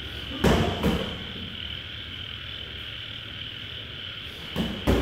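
Boxing gloves landing punches in sparring: two sharp thuds about half a second in and two more near the end. Under them runs a steady high-pitched chorus of frogs and insects.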